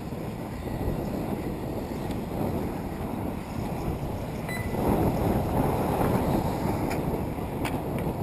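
Wind buffeting the microphone, growing stronger about five seconds in, with a few faint sharp clicks near the end.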